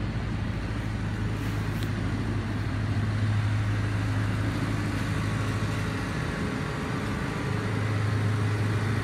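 An engine running steadily with an even low hum. The hum weakens for a moment about six seconds in.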